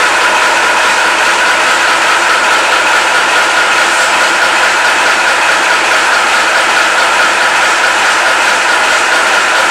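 Praga S5T truck's diesel engine running steadily after a cold start, a loud, even mechanical clatter.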